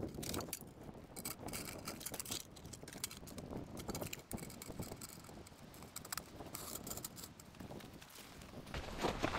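Folding camp table being set up by hand: light clicks, taps and rattles from its metal leg frame and the tabletop being fitted onto it.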